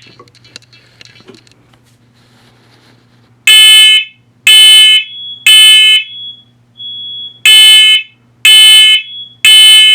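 First Alert smoke alarm sounding the temporal-three pattern, the smoke and fire evacuation signal, while being tested: three loud beeps about a second apart, a pause, then three more, starting about three and a half seconds in. A fainter single tone sounds in the pause, and a low steady hum comes before the alarm starts.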